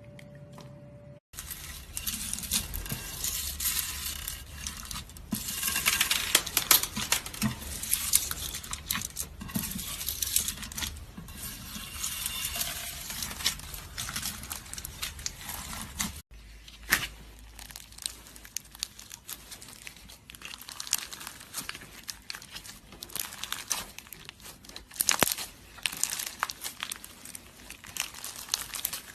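Slime being squeezed and stretched by hand, making a dense run of crackling and popping clicks.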